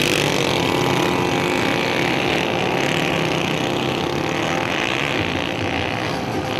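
Several motorcycle engines running and revving together, a dense, steady mix of engine notes.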